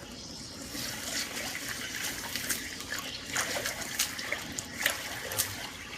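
Water spraying from a leaking water line under a concrete slab, a steady rush with irregular splashes. The leak comes from a broken shut-off valve buried under the floor.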